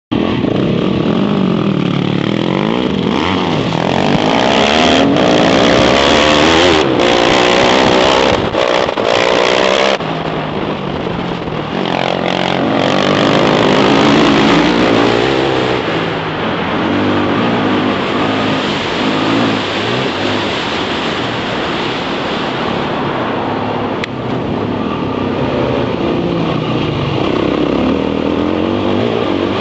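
Dirt bike engine revving up and down as the bike rides, its pitch rising and falling over and over. Wind noise runs under it on the helmet-camera microphone.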